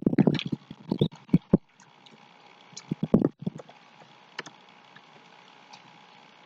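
Computer keyboard keys being typed: irregular sharp clicks, closely spaced in the first four seconds and sparser after, over a faint steady hiss.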